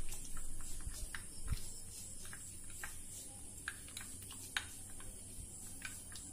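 Metal spoon stirring thick melted chocolate in a glass bowl, tapping and scraping against the glass in light, irregular clicks, with a couple of dull knocks in the first second and a half.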